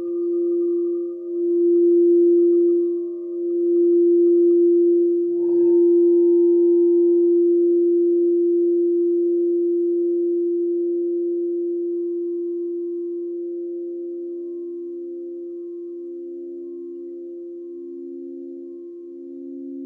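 Crystal singing instruments sounding a long, pure, steady tone that slowly fades, with a light knock about five seconds in. From about halfway a second, lower tone swells in, pulsing slowly as it beats.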